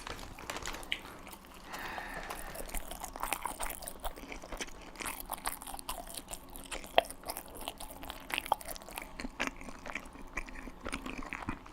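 Close-up chewing of a chili dog in a soft bun: wet mouth sounds with many small irregular clicks and crackles.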